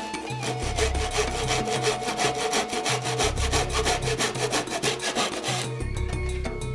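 Fine-toothed hand saw cutting through plywood with rapid, even back-and-forth strokes that stop shortly before the end. Background music continues underneath.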